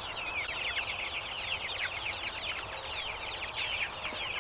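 A crowd of young chicks peeping without a break: a dense chorus of short, falling cheeps, many overlapping each second, over a steady high-pitched drone.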